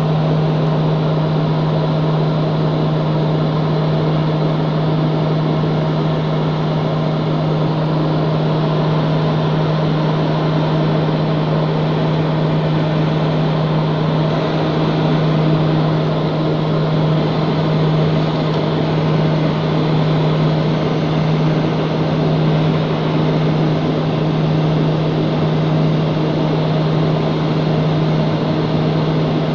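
Inside the cabin of a small high-wing aeroplane in flight, the engines and the rushing air make a steady drone. A strong low hum holds one pitch throughout, under an even hiss.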